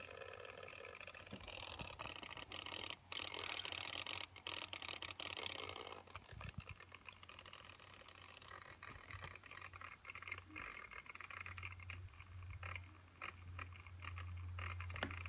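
Mid 2012 MacBook Pro making an unexplained weird noise: an uneven whirring buzz with scattered clicks, louder in the first few seconds, and a low hum that grows stronger in the second half.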